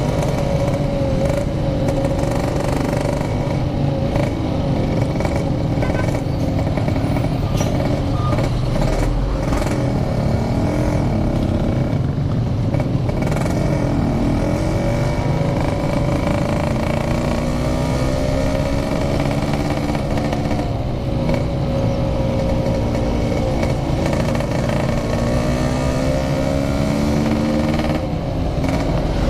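Yamaha RX-King 135cc two-stroke single-cylinder engine running under way, its revs rising and falling several times through the gears, over a constant low rush of wind noise.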